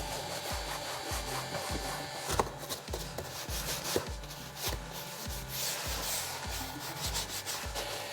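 Repeated rubbing strokes on a car door panel's trim surface, about two to three a second, with a few light clicks.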